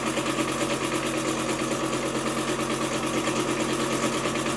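Small electric home candyfloss machine running, its motor spinning the sugar head with a constant hum and a fast, even flutter.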